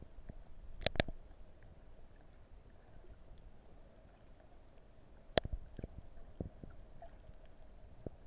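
Muffled underwater sound picked up by a submerged camera: a steady low rumble of moving water and handling, with a few sharp clicks, two in quick succession about a second in and one more about five seconds in.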